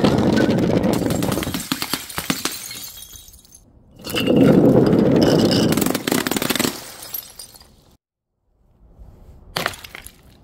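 Glass bottles dropped from height shattering on paving tiles, with liquid splashing from burst balloons. There are two long crashes of breaking glass and splashing, then a short sharp crash near the end.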